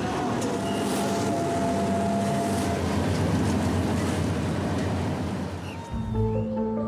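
Several motorboats running on choppy water, with waves and wind. About six seconds in this gives way to calm music with long held notes.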